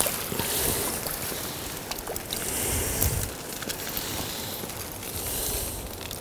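Water splashing and draining out of a mesh yabby trap as it is pulled up out of a creek.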